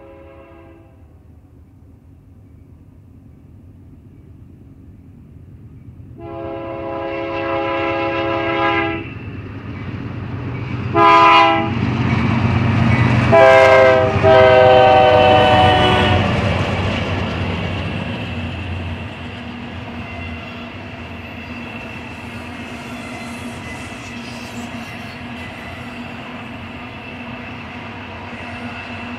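Diesel locomotive air horn on a BNSF GE C44-9W sounding three times: a long blast, a short one, and a last long blast that drops in pitch as the locomotives pass. This is followed by the steady rolling rumble of double-stack container well cars going by.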